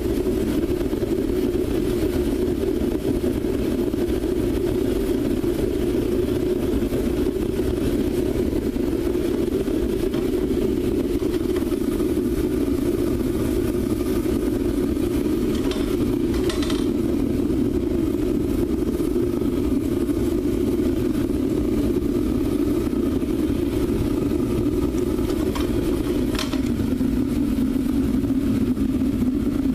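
Propane-fired foundry furnace burner running steadily, a constant low-pitched rush of flame. Two faint brief clicks come about halfway through and again near the end.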